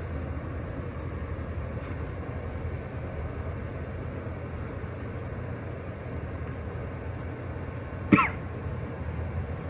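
A single short cough about eight seconds in, after a hit from a Geek Bar disposable vape with its airflow holes fully open, over a steady low rumble.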